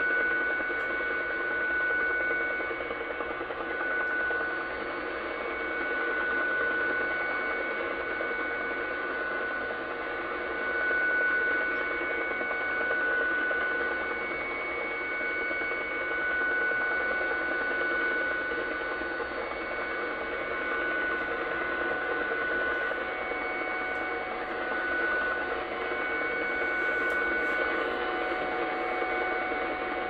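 Shortwave receiver audio of an unidentified utility signal near 12.220 MHz, received in AM: a set of steady tones over a noisy, woodpecker-like pulsing background. The tones drop out and return, and a lower tone comes in about two-thirds of the way through. The operator can't tell whether it is a jammer or some other type of signal.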